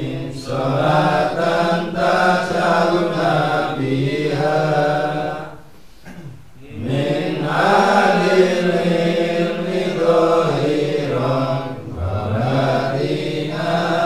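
Slow male devotional chanting (dhikr) in long drawn-out phrases, each held for about five seconds. There are short breaks for breath about six seconds in and again near twelve seconds.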